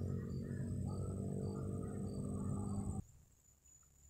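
Insects trilling steadily, with short chirps repeating about twice a second, over a steady low hum; everything cuts off abruptly about three seconds in.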